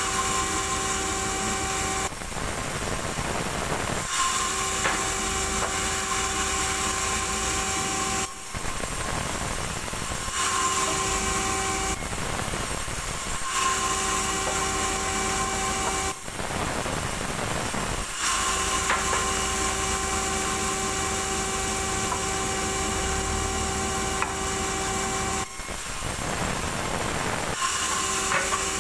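Sawmill band saw running and cutting small logs into planks in repeated passes. A steady whine alternates every few seconds with a noisier stretch as each cut goes through.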